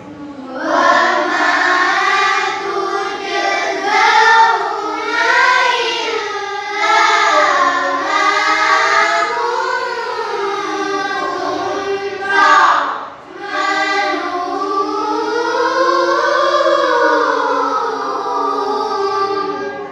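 A group of children singing together in unison in long melodic phrases, with a brief break for breath about 13 seconds in.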